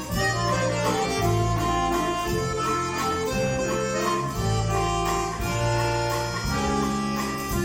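Duet of two bayans (chromatic button accordions) playing a melody over held bass notes that change about once a second.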